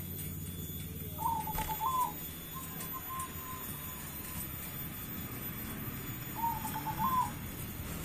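Zebra dove (perkutut) cooing: two short cooing phrases about five seconds apart, with a faint drawn-out note between them, over a steady low hum.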